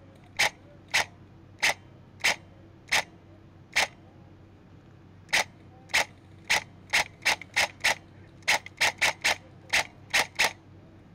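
Specna Arms M4 electric airsoft rifle firing single shots, each a short sharp mechanical click, about twenty in all: one every half second or so, a pause of about a second and a half, then a quicker run of shots near the end.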